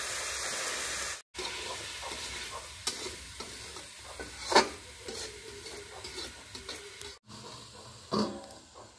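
Chicken pieces sizzling in a steel kadai, a steady hiss for about a second, then a steel spatula scraping and clinking against the pan as they are stirred. A sharp metal clink comes about halfway, and a steel plate clatters onto the pan as a lid near the end.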